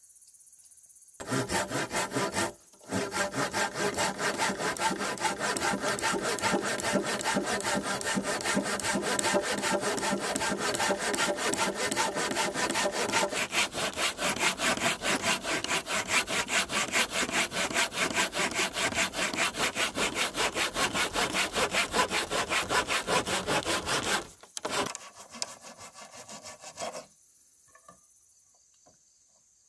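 Hand saw cutting through wood in quick, even back-and-forth strokes. It starts about a second in, pauses briefly, then runs on steadily until it stops at about 24 seconds, with a few weaker strokes after. Faint insect chirring is left at the end.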